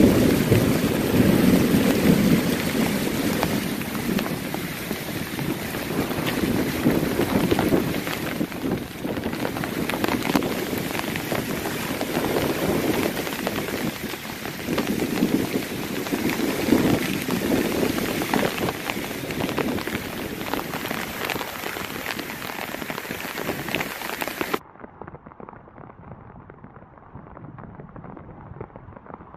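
Heavy tropical rain pouring in a thunderstorm, with low rumbles of thunder swelling and fading every few seconds. About 25 seconds in, the sound cuts abruptly to quieter, muffled rain.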